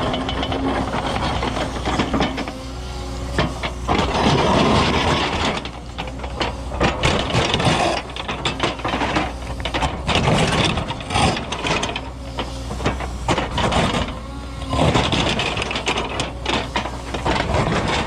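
Cat 314E excavator's diesel engine working steadily under load while its ripper tooth digs into hard bluestone, with frequent irregular knocks, cracks and grinding of steel on rock.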